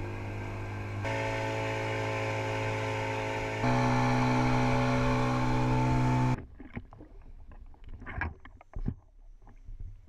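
Outboard engine of a rigid inflatable dive boat running under way, rising in pitch and loudness in two steps as it speeds up. About six seconds in it cuts off abruptly, giving way to faint, irregular water splashes.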